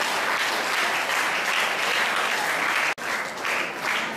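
Audience applauding steadily, with a brief sharp break about three seconds in before the clapping carries on.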